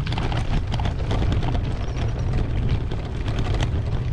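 Wind buffeting the microphone of a camera riding on a moving bicycle, a steady low rumble, with frequent small clicks and rattles from the bike rolling over a rough lane.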